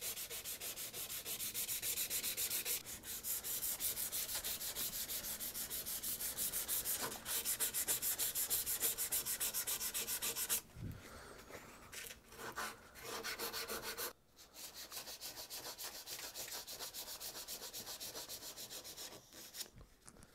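Sandpaper rubbed by hand in quick back-and-forth strokes across the steel cheek of a hewing axe head, about four strokes a second, to clean up the metal. About halfway through the strokes turn quieter and patchy, stop briefly, then carry on more softly.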